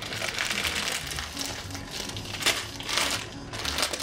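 Plastic sweet bag of Cadbury Eclairs crinkling as it is handled and opened, in several short rustling bursts.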